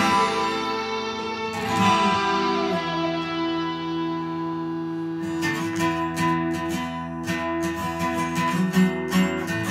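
Guitar-led instrumental music. A chord is struck at the start and another about a second and a half in, both left to ring, and rhythmic strumming takes over from about halfway.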